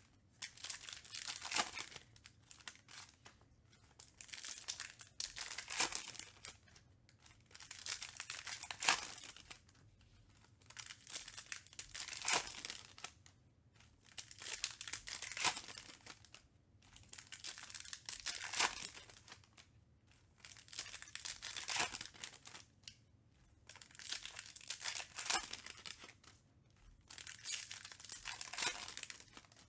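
Foil trading-card packs being crinkled and torn open by hand, with cards sliding against each other as they are handled. The rustling comes in repeated bursts every second or two.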